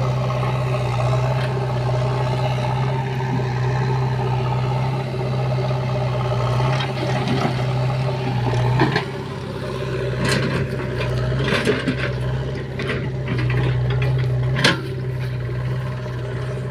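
Diesel engines of a JCB 3DX backhoe loader and a Swaraj tractor running steadily at work. From about seven seconds in come a series of knocks and clatters as earth drops from the bucket into the steel trolley and the backhoe bucket digs, with the sharpest knock near the end.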